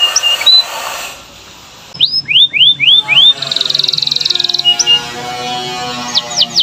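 Domestic canary singing. A few short repeated notes and a brief pause are followed by a run of whistled notes sliding downward, then a fast buzzing roll. Near the end comes another quick series of downward-sweeping notes.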